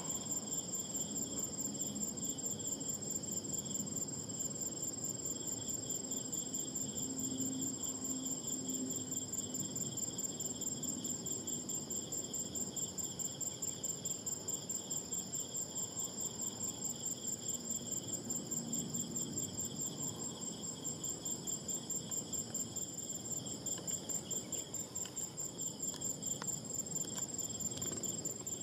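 Insects trilling in a steady high-pitched chorus of several pitches at once, pulsing evenly a few times a second.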